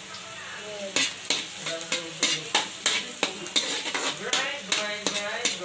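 Chopped garlic sizzling in hot oil in a metal wok, with a metal spatula scraping and clanking against the pan about three times a second as it stirs, starting about a second in.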